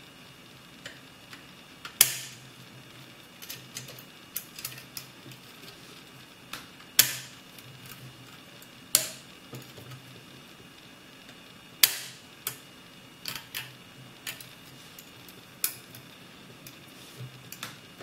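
Homemade pick and tension wrench working the levers inside a three-lever mortise lock, giving irregular small metallic clicks and ticks with a few louder clicks.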